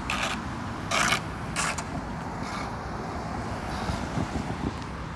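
Cars driving across a railroad grade crossing over a steady low rumble, with several short swishes of tyre noise as they pass over the rails, the loudest about a second in.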